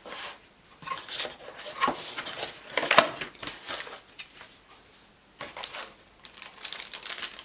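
Cardboard and plastic packaging being handled: irregular rustles and light knocks, the sharpest about three seconds in.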